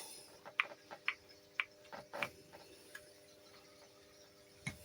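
Small, light clicks and taps of replica airgun pistol parts being handled, about half a dozen at irregular intervals, over a faint steady hum.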